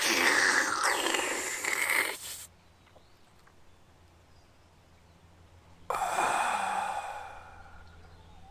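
A person's breathy exhalations, like sighs: a long one of about two and a half seconds, then after a pause a second that starts suddenly about six seconds in and fades away.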